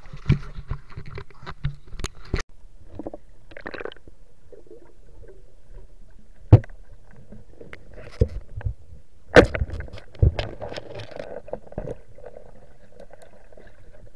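River water sloshing and gurgling, heard largely through a submerged camera, broken by a series of sharp knocks and clicks. The loudest knocks come about six and a half and nine and a half seconds in.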